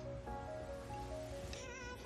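Soft instrumental background music with held notes changing every half second or so.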